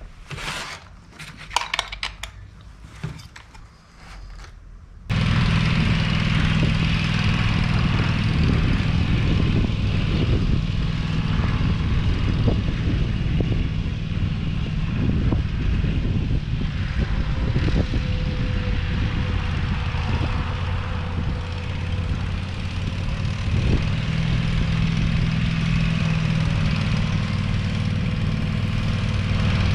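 A few light clicks and rattles of a chainsaw's chain and bar being handled on a bench, then, from about five seconds in, a riding lawn mower's engine running steadily.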